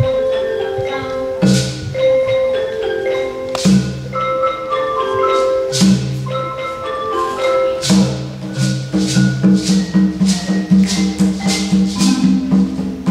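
A children's ensemble of wooden xylophones playing a tune over a repeating low bass-xylophone pattern, with a shaker striking a steady beat.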